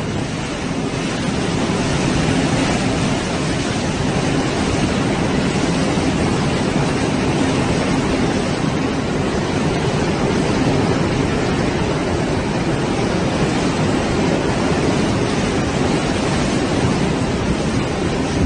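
Hurricane-force wind, a loud, steady rush of noise with no let-up.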